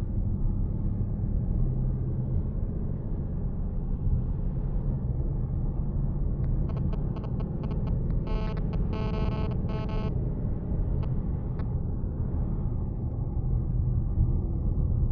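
The 2018 Ford Mustang GT's 5.0-litre V8 and road noise, heard from inside the cabin: a steady low drone while cruising. Just before halfway, a quick run of clicks sounds over it, then about two seconds of a high, pitched squeak.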